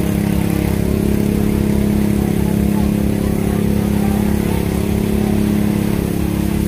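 Fire pump engine running steadily under load, powering the hoses, with an even pulsing throb low down.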